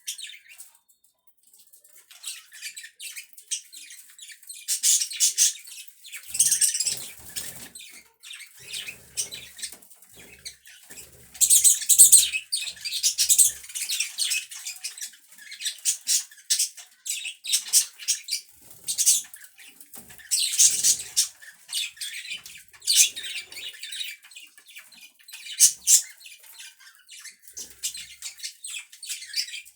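Pet budgerigars chirping and chattering in quick, high-pitched bursts, with a short lull about a second in.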